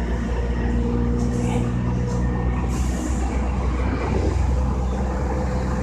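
Running noise heard inside the passenger car of a JR East E233 series 2000-subseries electric train travelling at speed: a steady rumble of wheels on the rails with a low, even hum from the drive.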